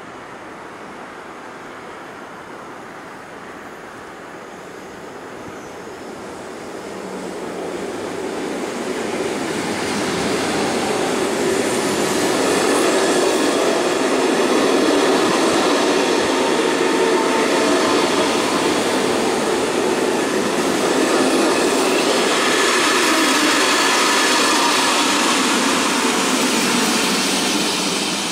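SNCB passenger train approaching and running past along the platform: its noise builds over the first ten seconds or so, then the coaches roll by steadily with their wheels running on the rails.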